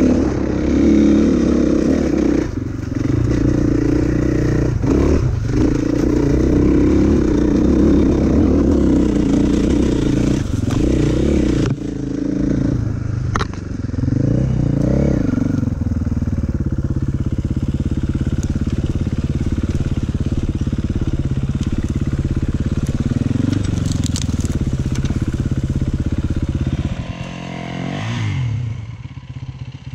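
Enduro dirt bike engine running hard off-road, the revs rising and falling as the rider works the throttle, with a few sharp knocks from the terrain. The engine note drops away sharply near the end.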